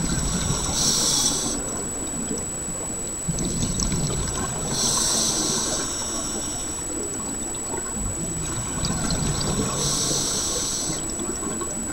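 Scuba diver's regulator breathing underwater: a hiss on each inhalation, three times, about every four to five seconds, with bubbling exhalations in between. A thin steady high whine runs under it.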